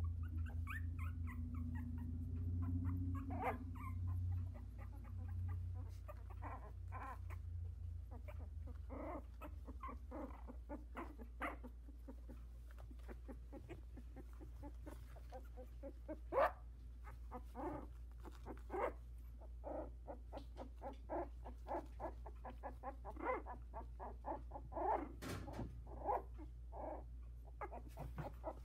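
Two-week-old Havanese puppies whimpering and squeaking: many short, high calls scattered throughout, a few louder ones in the second half. A low hum sits under the first few seconds and then fades.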